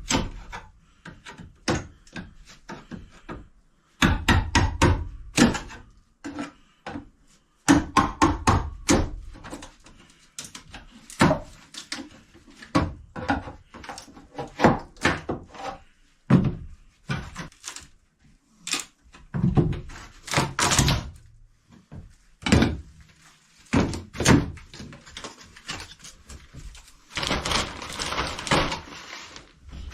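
Wooden knocks and thuds as galley trim and plywood are pried off and handled inside a wooden boat's cabin, some knocks coming in quick runs, with a scraping noise near the end.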